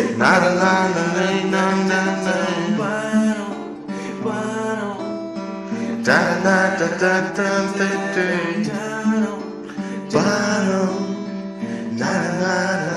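Acoustic guitar strumming chords in the instrumental close of a song, each chord left to ring, with fresh strums every couple of seconds.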